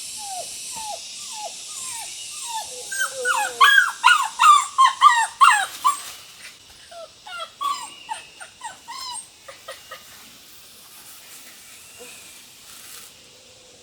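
A dog whimpering and yelping in a long string of short, high, falling cries, crowding together loudest in the middle and thinning out after that.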